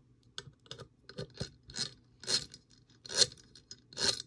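Freshly greased airsoft gearbox gears (a 16:1 gear set) being spun by hand in the open metal gearbox shell: a string of short scraping whirrs, about one every half second to second, as the grease is worked into the teeth.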